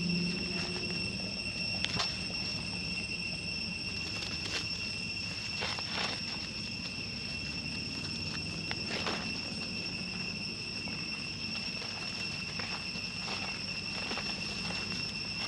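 Insects chirring steadily at one high pitch, with a few short clicks and rustles scattered through.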